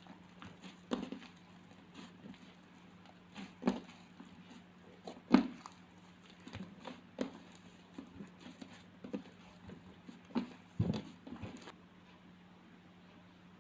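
Slime being squeezed and poked by hand, giving irregular wet pops and clicks, with the loudest pops about five seconds in and near the end. A steady low electrical hum runs underneath.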